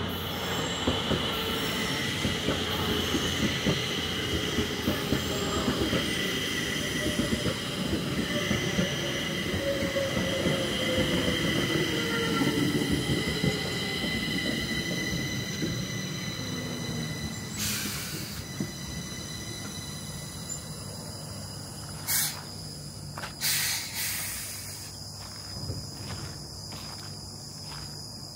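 Stockholm metro train pulling into the station and braking to a stop: steady high wheel squeal and a motor whine that falls in pitch as it slows, the running noise dying away. After it stops there are a few short bursts of hiss, then footsteps near the end.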